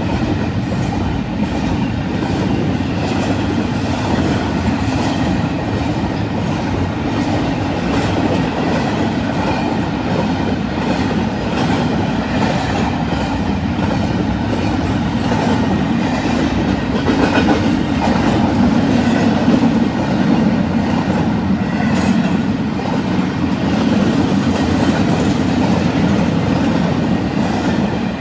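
Union Pacific double-stack intermodal train's well cars rolling steadily past, a continuous sound of steel wheels clicking and clattering on the rails.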